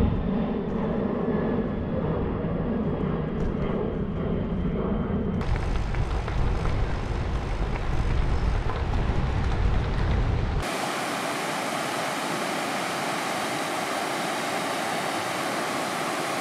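Wind rumbling on the microphone of a camera riding along on a bicycle. About ten seconds in it cuts off sharply to the steady rush of the Isar river's whitewater rapids.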